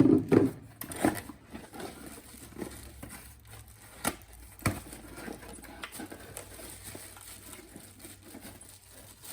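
Rustling and crinkling of packaging as power tools are handled, with a burst of handling noise at the start and a few sharp knocks about one and four seconds in.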